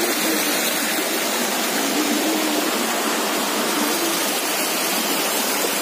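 Stream water rushing steadily over rocks, a constant even rush of running water.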